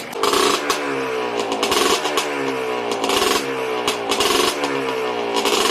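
Freshly rebuilt Yamaha Blaster's single-cylinder two-stroke engine being revved in quick throttle blips, about one a second, each rising sharply and then falling back toward idle. It runs with no knocking.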